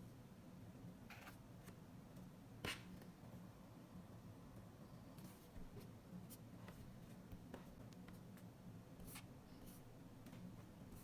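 Faint scattered taps and light scratches of a stylus tip on an iPad screen, the loudest tap about three seconds in, over a low steady hum.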